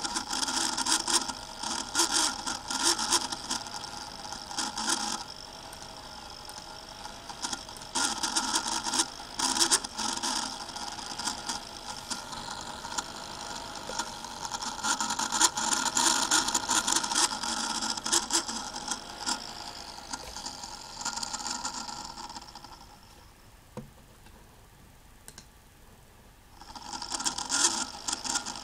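Sony Vaio VGN-CS320J laptop cooling fan whirring loudly with a scraping, chirping, crackling rattle: the fan is failing. The noise swells and eases in waves, dies down about three-quarters of the way through, and returns a few seconds later.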